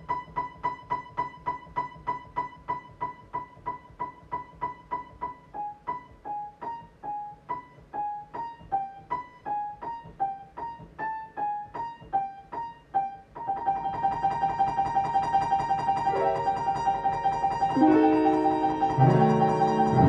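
Solo piano playing a high note repeated about three times a second, which then alternates with a slightly lower note. About thirteen seconds in, the high note turns into a continuous rapid repetition, and lower chords come in beneath it, growing louder near the end.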